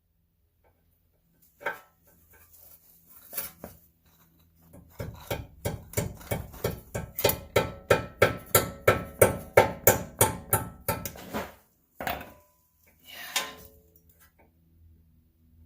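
Steady run of sharp metal-on-metal hammer blows, about three a second for some six seconds, swelling then easing, with a few scattered knocks before and after: hammering on the steering knuckle to free the front ball joint.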